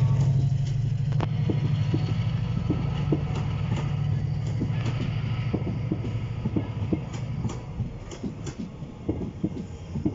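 Diesel train pulling away: a Class 68 diesel locomotive's engine rumbles, fading steadily as it moves off. The Mark 5A coaches' wheels click over the rail joints at a steady rhythm, clearer as the engine noise dies down.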